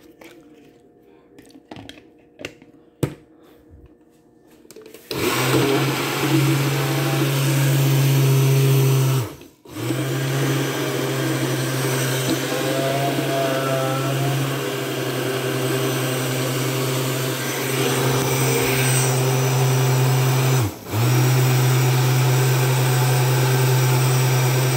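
A few light clicks, then an electric blender switches on about five seconds in and runs steadily, blending a smoothie. It cuts out twice for a moment, winding down, and starts again each time.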